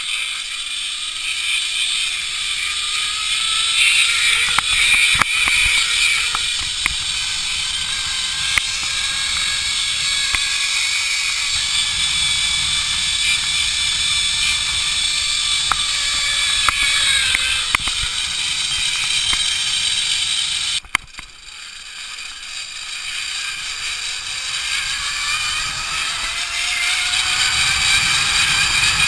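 Zip-line trolley pulleys running along a steel cable: a whine that rises in pitch as the rider picks up speed, then holds steady, with a few sharp clicks and rattles. About two-thirds of the way through it cuts out abruptly, then rises in pitch again.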